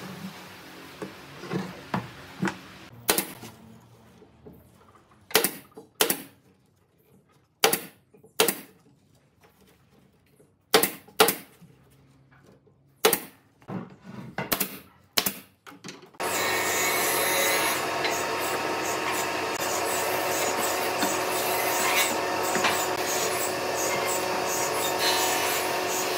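A pneumatic nail gun firing nails into thin bent-wood chair slats: about a dozen sharp snaps, irregularly spaced. At about sixteen seconds the snaps stop and a steady, dense machine noise takes over.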